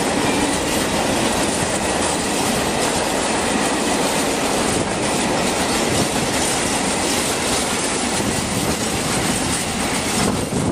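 Empty flat freight wagons rolling past on the track with a loud, steady clatter of wheels over the rails, and a faint high wheel squeal running under it.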